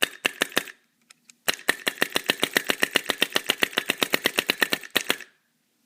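Ion paintball marker's solenoid and bolt cycling on low air pressure, about 20 psi: a few sharp clicks, then from about a second and a half in a rapid, even string of clicks at about ten a second that lasts some three and a half seconds.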